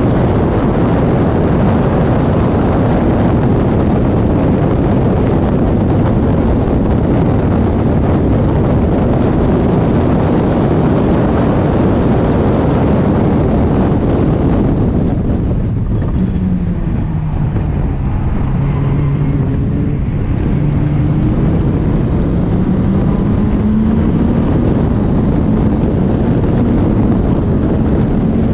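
Caterham 420R's four-cylinder engine running hard with heavy wind noise on the microphone. About halfway through the wind eases and the engine note falls as the car slows, then climbs steadily again as it accelerates.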